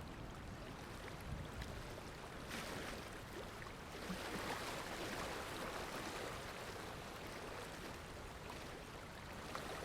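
Waterfall water rushing steadily, a continuous hiss that grows a little brighter about two and a half seconds in.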